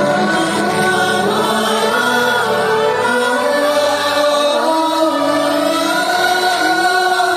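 Music with choral singing: voices hold long, slowly moving notes.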